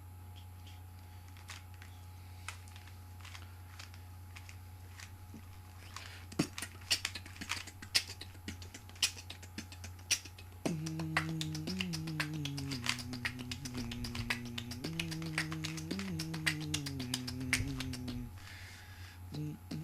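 Plastic Rubik's Cube layers clicking and clacking as they are turned by hand, in quick runs of clicks that get busier from about six seconds in. From about halfway through, a low pitched tone steps between held notes underneath the clicks for several seconds.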